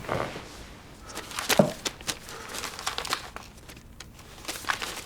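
Irregular rustling and crinkling, like material being handled, with scattered short clicks, loudest about a second and a half in.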